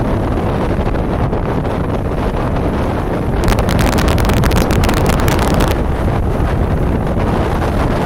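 Strong wind buffeting the microphone over waves washing against rocks, a steady low rush. A harsher, hissing gust lasts about two seconds in the middle.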